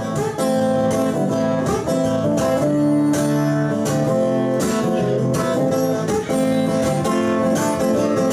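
Acoustic guitar strummed in a steady rhythm as the instrumental intro of a song, with a second stringed instrument played on the lap alongside it.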